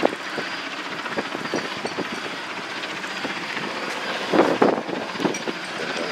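Turbine-powered Sikorsky S-58T helicopter flying at a distance: a steady rotor and engine rush with irregular chopping knocks, and a louder surge of noise about four seconds in.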